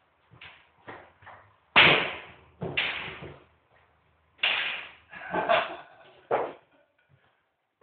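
Pool balls struck with a cue, clacking together and dropping into the pockets over two shots. The loudest knock comes about two seconds in, and a second group of knocks follows from about four and a half seconds.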